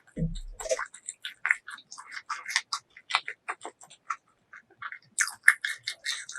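Close-miked eating sounds: chewing and biting, heard as a rapid run of short crisp crackles and wet mouth clicks, with a brief low thump just after the start.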